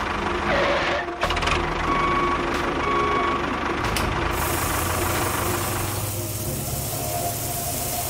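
Tractor engine running steadily at idle. From about four seconds in, a steady hiss joins it as sand pours from the tipping trailer.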